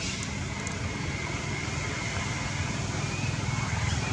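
Steady outdoor background noise: a continuous low rumble under an even hiss, with a thin, faint steady high tone.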